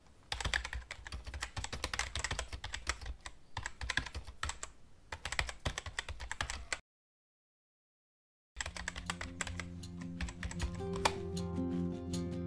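Rapid clicking of typing keys, stopping dead about seven seconds in for a couple of seconds, then starting again. When it resumes, music with sustained low notes comes in beneath it.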